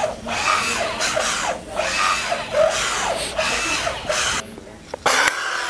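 Rhythmic rasping and scuffing from a person walking in a Tibion Bionic Leg powered knee brace, about two strokes a second, stopping about four and a half seconds in; one more short scrape follows near the end.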